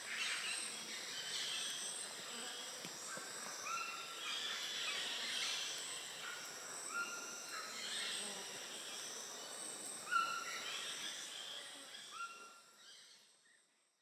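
Tropical rainforest ambience: steady high-pitched insect buzzing with short whistled bird calls repeating every second or two, fading out near the end.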